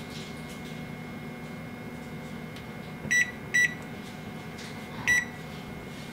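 Whirlpool wall oven's control panel beeping as its keypad buttons are pressed to set the timer. There are three short, high beeps: two close together about three seconds in, and a third about a second and a half later. A steady low hum runs underneath.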